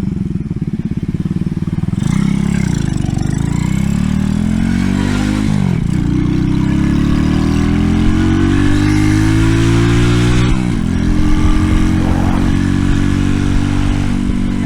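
Loud single-cylinder engine of an RPS Racer 140 mini bike, breathing through a stainless side-exit exhaust, accelerating. Its pitch climbs steadily, drops sharply at two upshifts about six and eleven seconds in, then holds fairly steady.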